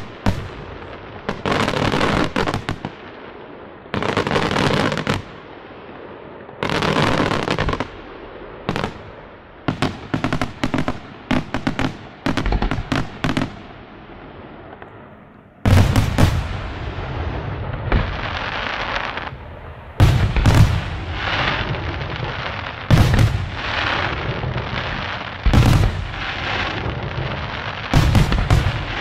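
Aerial firework shells bursting one after another in a fireworks display, with a quick run of sharp cracks near the middle. After a short lull about halfway through, a denser barrage of deep booms and reports takes over.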